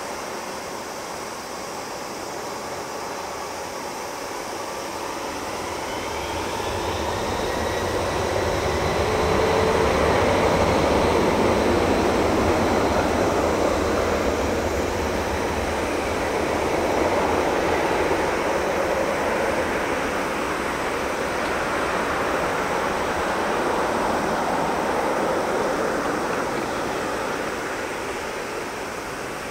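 Boeing 767-200ER's twin turbofan engines spooling up to take-off thrust, with a rising whine in the first several seconds, then a loud, steady rushing jet noise as the airliner accelerates down the runway. The noise swells about ten seconds in and eases a little near the end as the aircraft pulls away.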